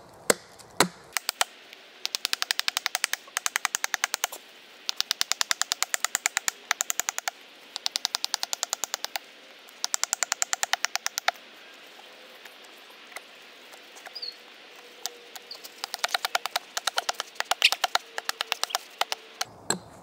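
Small Gränsfors hatchet chopping a piece of beech into a wedge: quick, even blows, several a second, in runs of a few seconds with short pauses, lighter and more scattered for a while before picking up again.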